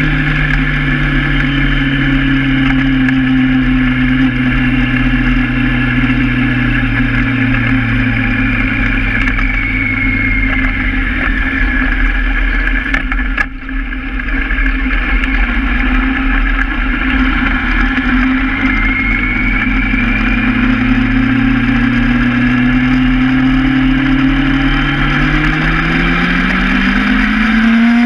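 Honda Hornet motorcycle engine heard from the handlebars. Its note falls as the bike slows, stays low for a few seconds with a brief dip about halfway through, then rises again as the bike accelerates, climbing steeply near the end.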